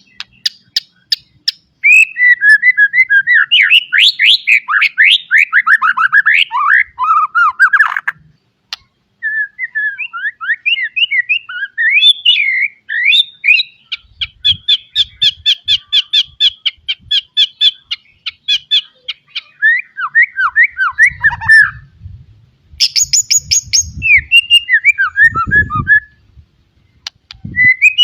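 White-rumped shama (murai batu) singing a long, varied song of loud whistled phrases and sweeps mixed with mimicked calls, breaking off briefly about eight seconds in and again near twenty-two seconds. From about fourteen to nineteen seconds a fast, even rattling trill runs under the phrases, and a few low thuds come near the end.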